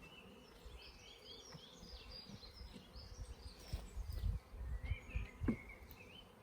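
Honeybees humming around an opened hive, with small birds chirping over it. A few low knocks and rustles come in during the second half.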